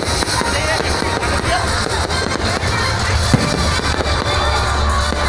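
Fireworks display crackling and bursting in a dense, unbroken stream over loud music with a heavy bass, with one sharper bang about three seconds in.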